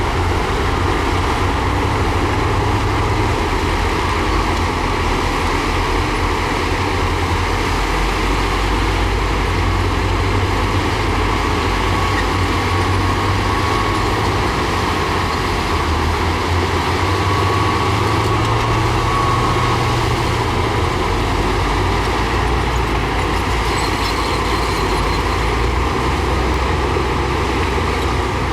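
Heavy diesel earthmoving machinery, a bulldozer and dump trucks, running steadily with a deep engine rumble. A faint thin whine sits over it in the middle.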